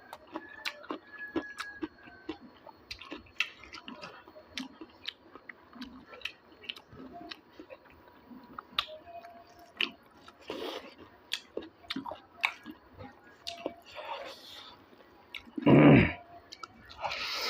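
Close-up chewing and eating sounds from a mukbang of pork and bamboo shoot: wet mouth clicks and smacks as the food is chewed, with a louder noisy burst about a second and a half before the end.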